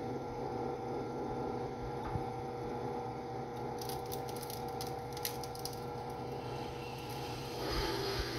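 Benchtop drill press running with a steady motor hum while its bit bores into the metal back cover of an iPhone 5s. Short scratchy crackles of the bit cutting come a few seconds in, and the cutting noise grows louder near the end.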